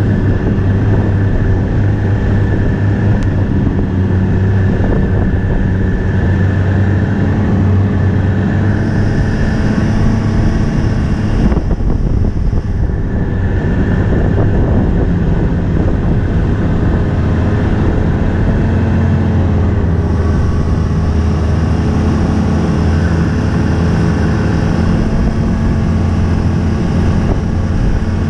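Snowmobile engine and track running steadily at cruising speed, heard from the rider's seat, with a steady low engine hum under the noise of the track and rushing air.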